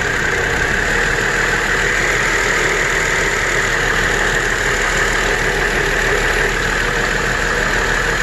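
2005 GMC Envoy's 4.2-litre inline-six engine idling steadily, running with a misfire on cylinder number 3.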